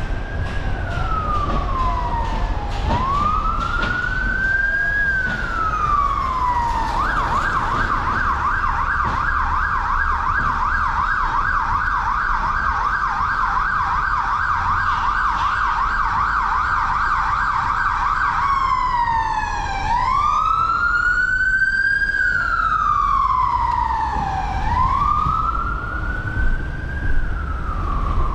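Emergency vehicle siren sounding over a steady low rumble. It starts with a slow rising-and-falling wail, switches about seven seconds in to a fast yelp, and about eleven seconds later goes back to the slow wail until the end.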